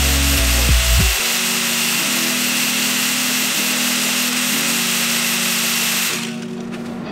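Angle grinder with an abrasive disc grinding welds flush on thin car-body sheet metal: a steady high grinding whine that stops about six seconds in. Background music plays underneath.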